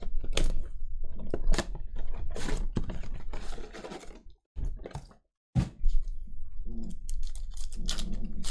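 Foil-wrapped trading card packs crinkling and crackling as they are pulled out of a cardboard hobby box and handled, with many sharp clicks. The sound breaks off for about a second midway, then the crinkling resumes.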